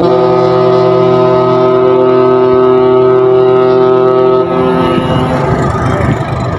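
A ship's horn blowing one long, steady blast that starts abruptly and dies away about four and a half seconds in.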